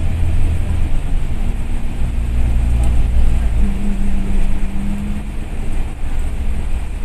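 Bus engine and road noise heard from inside the cabin while the bus is moving: a steady low drone with a humming tone that drops a little in pitch about three and a half seconds in.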